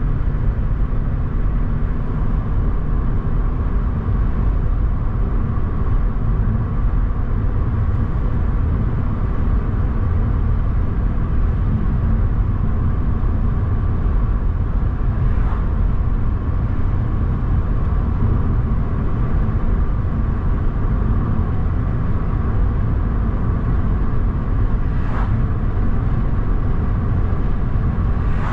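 A car driving along a road: steady engine and tyre noise, with a couple of faint brief ticks, one about halfway through and one near the end.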